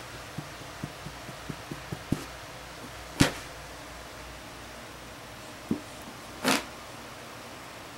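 Pet skunk's feet on carpet: a run of soft taps in the first two seconds, then a sharp knock about three seconds in and a short scuffing burst at about six and a half seconds. These are the stomps and lunge of a skunk warning someone off from its food.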